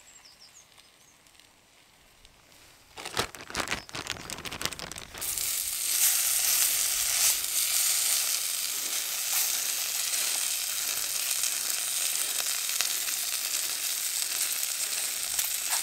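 Flour-coated beef chunks frying in bacon fat in a small pan on a Trangia Mini alcohol stove: a steady sizzle that sets in about five seconds in. Just before it, a couple of seconds of clicking and rattling.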